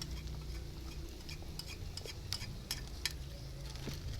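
Wood campfire crackling: scattered, irregular sharp pops over a low steady hum.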